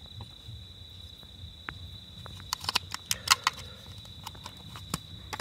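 Crickets trilling on one steady high note, with sharp plastic clicks and taps from a spice container being handled and tapped over a steel bowl, bunched about two and a half to three and a half seconds in and once more near the end.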